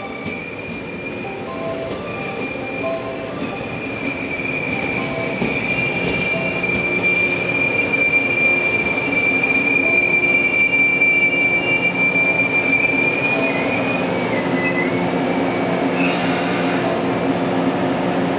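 JR West 115 series electric train rolling past, its wheels squealing: a high, steady squeal that builds from about four seconds in, holds strongly, then wavers and breaks up about thirteen seconds in, over the rumble of the running train.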